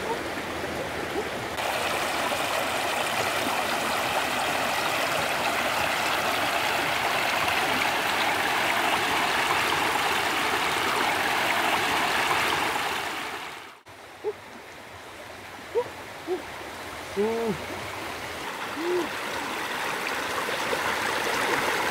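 Shallow stream rushing and splashing over rocks. About two-thirds of the way in, it fades out abruptly and gives way to a quieter stretch of flowing water, with a few short, low calls.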